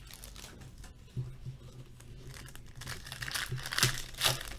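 Foil trading-card pack wrapper being crinkled and torn open by hand, the rustle building to loud tearing near the end. There is a dull thump about a second in.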